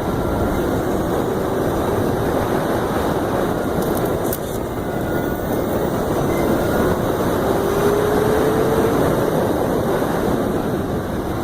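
Wind and road noise rushing past while riding a Zero SR electric motorcycle, steady throughout, with a faint whine rising in pitch about two-thirds of the way through; the electric motor itself is nearly silent.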